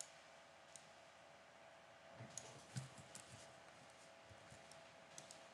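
Near silence: room tone with a few faint, scattered computer mouse clicks.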